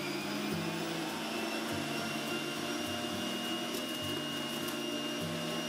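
Centrifugal electric juicer running at full speed: an even motor whine over a steady whirr, as peeled ginger root is pressed down its feed chute.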